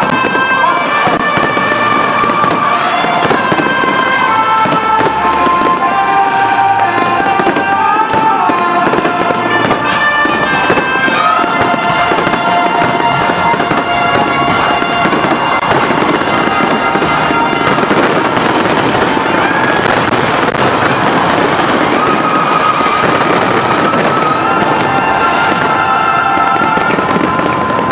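Fireworks display: a dense, continuous run of bursts and crackles, with music playing alongside.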